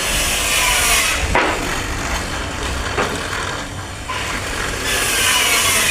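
A mortise being cut into a wooden door: tool-on-wood scraping strokes with sharp knocks, repeating about every one and a half seconds.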